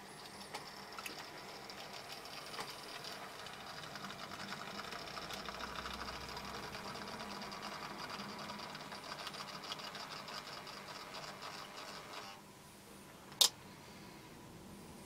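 Model Warship diesel locomotive, a much-modified 1970s Minitrix model, running along the track with a rake of coal wagons: the steady whirr of its small electric motor and the rattle of its wheels grow louder as it approaches, then stop about twelve seconds in. About a second later comes a single sharp click.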